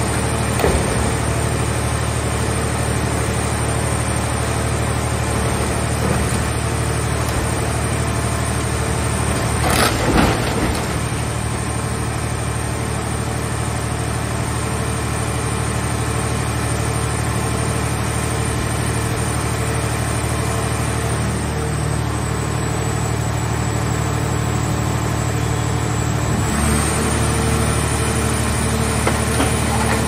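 Mobile car-shell baler's hydraulic power unit running steadily under load while it crushes a scrap car body, with a sharp crunch of metal about ten seconds in. Near the end the machine's tone changes as the press moves to its next stroke.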